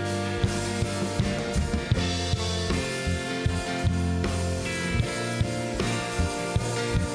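Live worship band playing an instrumental introduction: a drum kit keeping a steady beat with kick and snare, over guitar and sustained bass notes.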